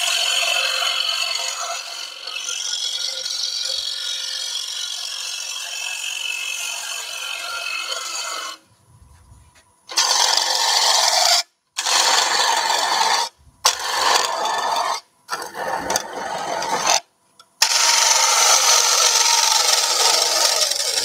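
Bowl gouge cutting the inside of a wooden bowl spinning on a lathe: a steady scraping hiss as the bevel-rubbing push cut hollows the bowl. After about eight seconds the cut breaks into several short strokes with brief silences between them as the tool backs out, then runs as one long cut near the end.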